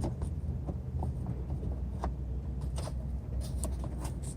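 Faint scattered clicks and light scrapes as a replacement fog light housing is slid and fitted into a truck's front bumper, over a steady low rumble.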